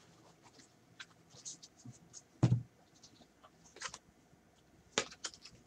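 Gloved hands handling cardboard trading-card boxes and packs on a table: scattered light clicks and rustles, with a dull thump about two and a half seconds in and a sharper tap near the end.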